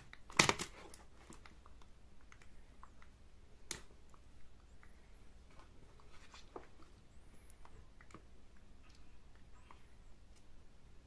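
Handling noises: a few sharp knocks and clicks in the first second and another about four seconds in, then faint scattered clicks and rustling.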